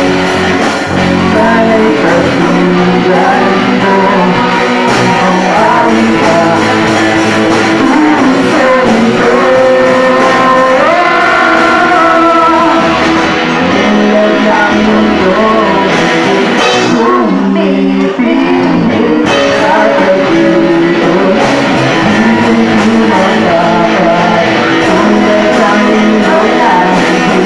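Live rock band performing a song: electric guitars, bass guitar and drum kit, with a boy and a girl singing.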